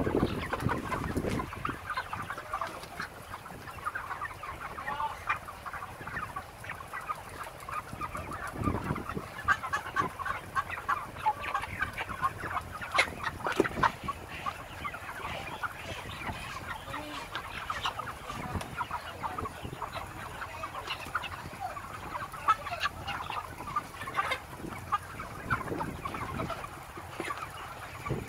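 A large flock of broiler chickens clucking and chattering, many short calls overlapping without pause. There is a low thump at the very start.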